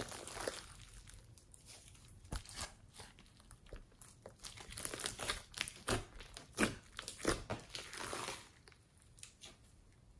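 Thick foam-bead slime being squeezed, folded and stretched by hand: irregular sticky crackles and pops, dying down near the end.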